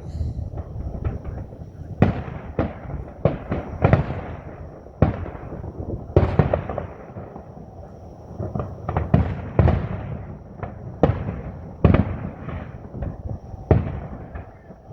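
Fireworks display: a rapid, irregular series of sharp bangs from bursting shells, a dozen or more, each trailing off in a rumbling echo.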